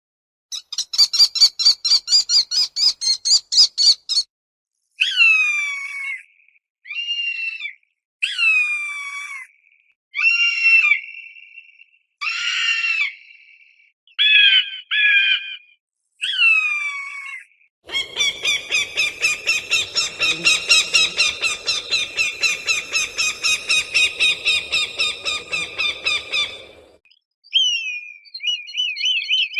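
Falcon calling: first a fast run of short, sharp repeated notes, then a series of separate screeches about a second long that fall in pitch, then another long fast run of repeated notes with some background noise behind it.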